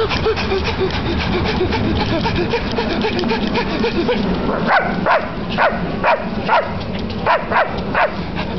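A man imitating a dog with his voice: quick rhythmic panting, then about eight short whimpering yelps that rise and fall in pitch, over the low rumble of a moving train.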